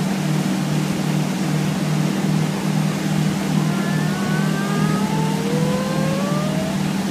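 Steady low engine drone, with a slow rising whine joining in about four seconds in, like an engine revving up.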